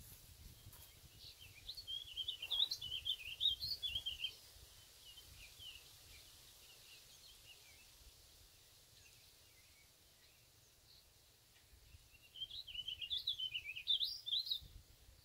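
A songbird singing a rapid, jumbled warbling song twice, each bout about two and a half seconds long, once a second or so in and again near the end, over a faint low rumble.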